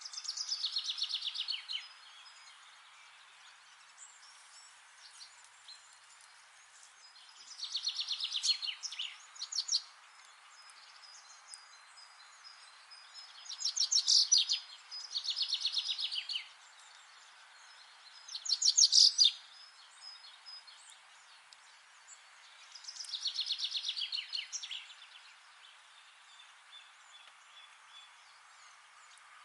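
A songbird singing a short song of fast repeated notes that falls in pitch. About six songs come a few seconds apart, over a steady background hiss.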